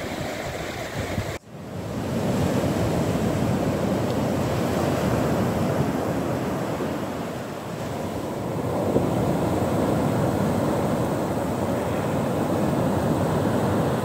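Sea surf: waves breaking on a sandy beach, a continuous wash that swells and eases, with a brief break in the sound about a second and a half in.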